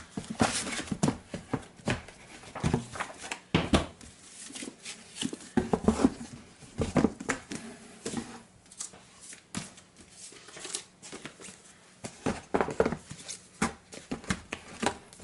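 Books being slid, shifted and set down inside a cardboard shipping box: irregular knocks, taps and scrapes of book against book and against the cardboard.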